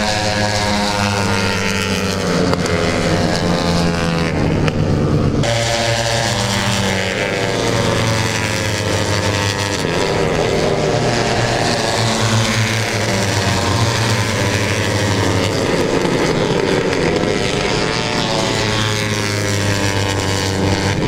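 Racing motorcycle engines at high revs on the circuit, their pitch rising and falling again and again as the bikes pass and shift, over a steady low drone.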